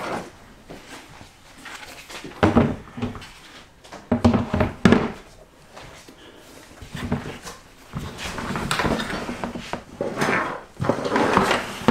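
Hard plastic parts of a portable camp sink being handled: a moulded drying rack knocked against and slid along the sink tub's rim into its slot, giving several sharp clacks and stretches of plastic scraping.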